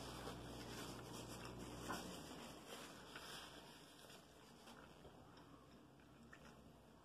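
Near silence with faint rustling and small clicks from a paper napkin being handled and wiped across the mouth, with one sharper tick about two seconds in. A low background hum cuts off at about the same moment.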